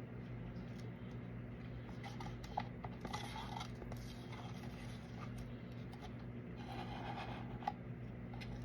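Light scraping twice and a few sharp clicks from handling plastic resin cups and tools, over a steady low hum.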